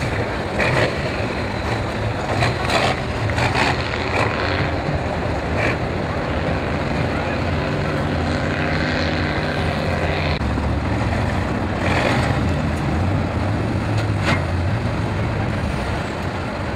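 Tatra 813 8x8 truck's twelve-cylinder diesel engine working under load through deep mud, its note rising and falling as the driver works the throttle.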